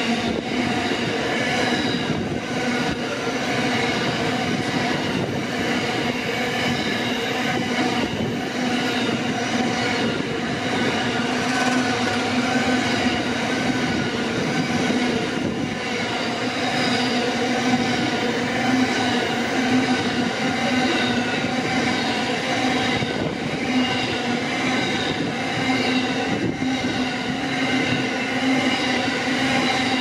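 Loaded coal train's hopper wagons rolling past at speed: a continuous rumble and clatter of wheels on the rails, with a steady ringing tone held over it.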